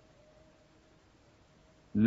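A pause in chanted Quran recitation, with only faint hiss and a faint steady hum. The male reciter's chanting voice comes back in just at the end.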